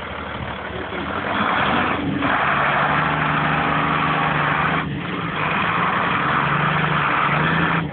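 Tractor engine running steadily while ploughing, growing louder about a second in.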